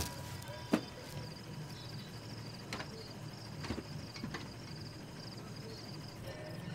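Crickets chirping steadily, with a few faint clicks scattered through, the sharpest under a second in.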